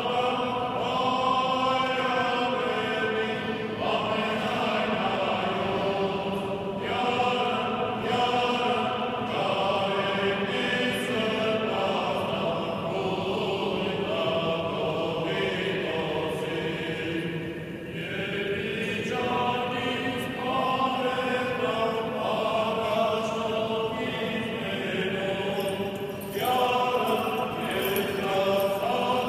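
Group of Armenian Apostolic clergy singing liturgical chant in long held phrases, with short breaks between them.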